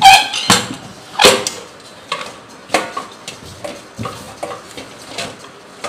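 Aluminium pressure cooker being worked into a cardboard packing box among other pots and boxes: a run of metal clanks and knocks, the loudest three in the first second and a half, the first with a short ring, then softer bumps.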